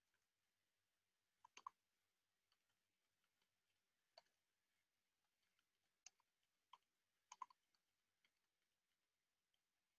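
Faint, scattered clicks of computer keyboard keys being typed on, a few keystrokes at a time with pauses between.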